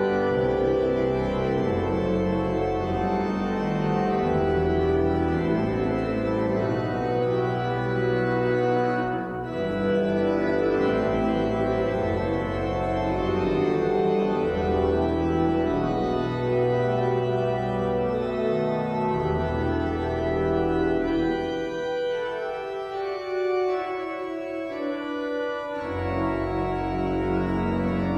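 Organ playing sustained chords over a bass line that steps from note to note. The bass drops out for a few seconds near the end, leaving only the upper chords.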